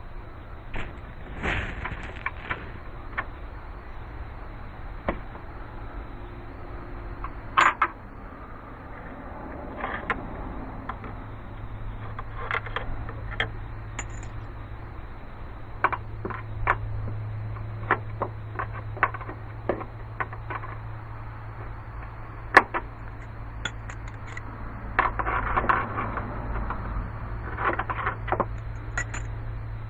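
Scattered clicks, knocks and clinks of hand tools and parts being handled in a car's engine bay, with a cluster of handling noise about 25 seconds in, over a steady low hum.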